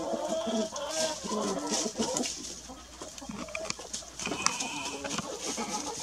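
Several domestic hens clucking in short, overlapping low calls as they forage.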